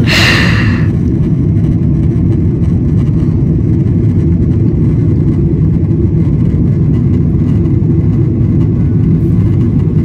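Steady loud cabin noise of a jet airliner shortly after takeoff: the deep, even rumble of the engines and rushing air heard from a window seat. A short hiss comes right at the start.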